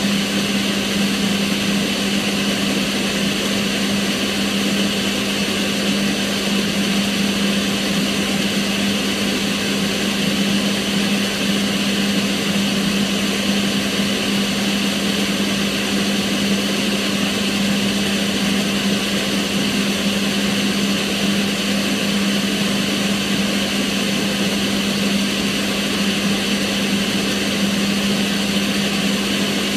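Kitchen range hood extractor fan running at a constant speed: a steady low hum under an even rush of air.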